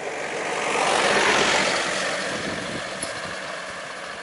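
A road vehicle passing close by: a rush of tyre and engine noise that swells over the first second and fades away over the next two.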